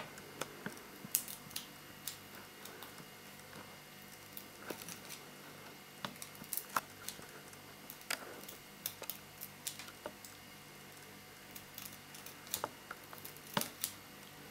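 Small scissors snipping and trimming a thin strip, giving irregular sharp clicks as the blades close, scattered with pauses between them.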